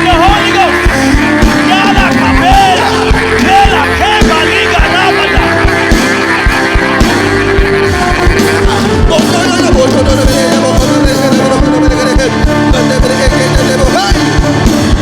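Live worship music with a steady drum beat and held chords, with voices singing and praying aloud over it.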